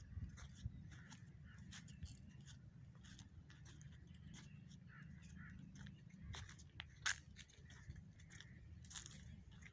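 Irregular crunching and crackling of dry leaves and twigs underfoot, with one sharp snap about seven seconds in.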